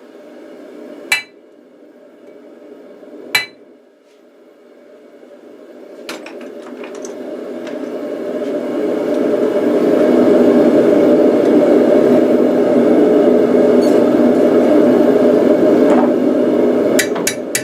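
Two single hammer blows on steel, each ringing briefly, then a steady rushing noise that builds over several seconds and holds loud. Near the end a run of quick hammer strikes begins.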